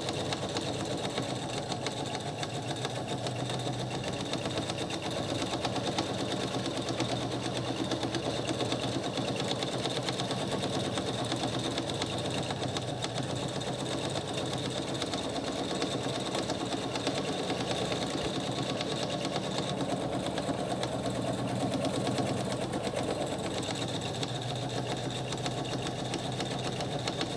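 Electric sewing machine running steadily, needle stitching rapidly in a continuous seam around the edge of layered cotton fabric and wadding.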